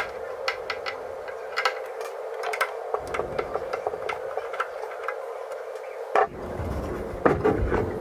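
Small screwdriver working a screw in the back panel of a WD My Cloud PR4100 NAS case: a run of light, irregular clicks over a steady hum, with a few louder knocks from handling the case about six and seven seconds in.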